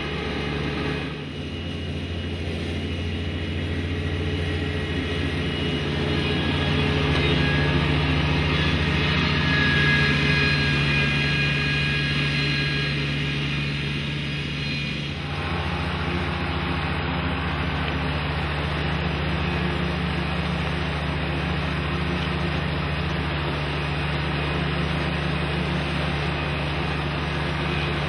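Ferris IS 3200Z zero-turn mower's engine running steadily under load as it cuts grass, with a steady low hum; the sound changes abruptly about a second in and again around halfway through.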